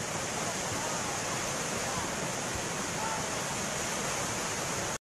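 Fast-flowing muddy floodwater rushing past: a steady, even rush of water that cuts off suddenly at the end.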